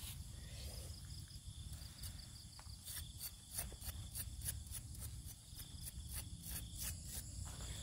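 Night insects, crickets, chirring steadily in high tones. From about three seconds in comes a run of crisp crackles and rustles as hands and a knife pick at charred, straw-grilled fish on banana leaves.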